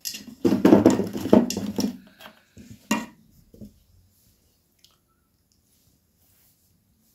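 Wooden spoon scraping cake batter out of a stainless steel bowl and knocking against the metal bowl and cake tin. There is a run of scraping and clatter in the first two seconds, then a couple of separate knocks around three seconds in.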